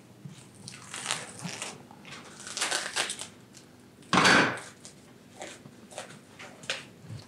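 Plastic cling film crinkling and rustling in a few short bursts, the loudest about four seconds in, with light clicks and taps between, as it is handled to cover dough balls.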